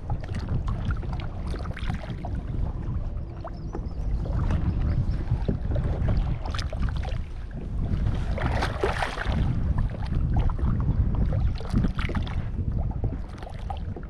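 Wind rumbling on the microphone while choppy water slaps against a plastic kayak's hull, with irregular small splashes and knocks. A louder rush comes about nine seconds in.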